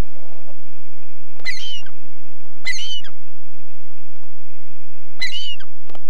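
Gull calling: three short calls, the first two about a second apart and the third a few seconds later.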